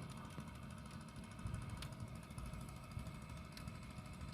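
Small boat's motor running as it passes, a faint low steady chugging rumble.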